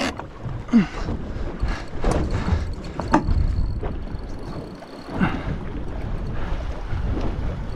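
Wind buffeting the microphone as a low rumble, with scattered knocks and water noise from a small boat rocking in choppy water.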